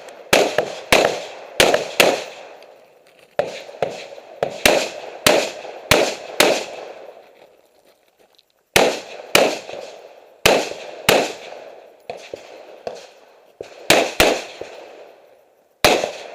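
Rifle gunshots fired in quick strings, a couple of shots a second, each ending in a short fading echo, with a pause of about a second and a half near the middle before firing resumes.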